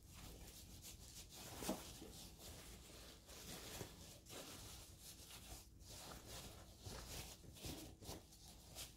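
Faint rustling of fabric being handled and pushed into place by hand, with one brief soft tap about two seconds in.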